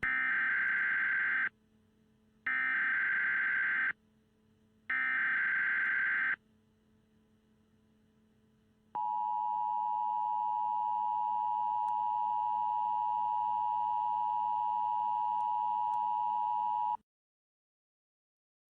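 Emergency Alert System tones: three short bursts of SAME digital header data, each about a second and a half with a pause between, then the steady two-tone EAS attention signal held for about eight seconds before cutting off abruptly.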